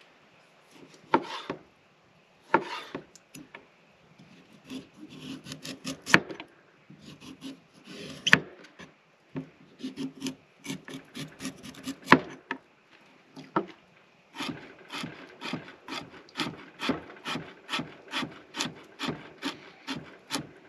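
A chef's knife on a wooden cutting board: a few sharp knocks and scraping strokes as vegetables are cut and a carrot is peeled with the blade. In the last third comes a steady run of chops, about two to three a second, as the carrot is sliced.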